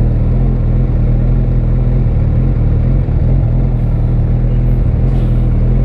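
Honda CB1000R's inline-four engine running steadily under way through a Yoshimura R-77 exhaust. The engine note briefly dips and wavers about halfway through, then steadies again.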